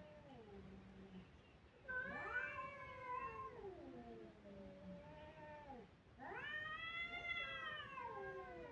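Domestic cats caterwauling in a face-off: long, drawn-out yowls that waver and slide up and down in pitch. One yowl starts about two seconds in and trails off; a second, higher one rises about six seconds in and is still going at the end.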